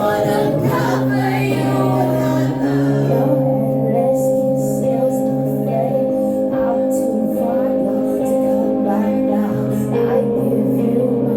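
Live band music, filmed on a phone: an instrumental passage of sustained chords that change every few seconds, with no sung words.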